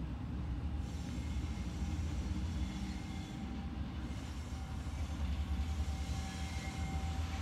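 Container train shunting slowly behind TasRail TR class diesel-electric locomotives: a steady low rumble of the engines and rolling wagons, with a thin faint wheel squeal from the curve that grows louder near the end.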